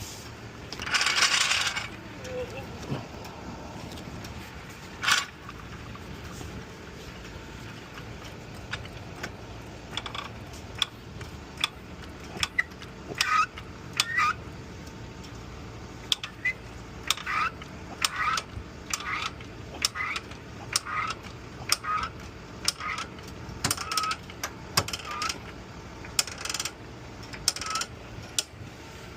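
Metal tools clinking against each other and the car during a roadside tire change: short ringing clinks, roughly one a second through the second half, with a brief rush of noise about a second in.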